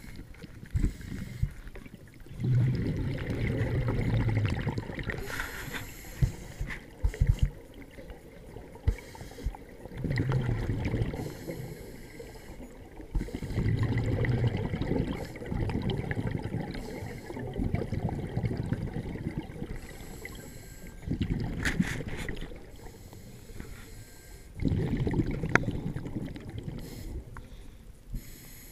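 Scuba diver breathing through a regulator, heard underwater through a camera's waterproof housing: a rush of exhaled bubbles every few seconds, a thin hiss of inhalation between them, and a few sharp clicks.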